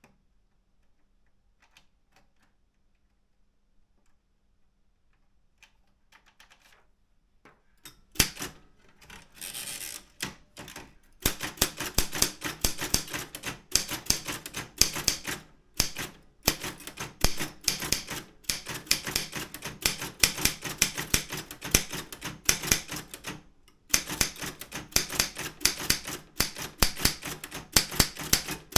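Daro Optima M16 manual typewriter being typed on. A few faint ticks for the first several seconds, then rapid, steady keystrokes from about eight seconds in, broken by a few brief pauses.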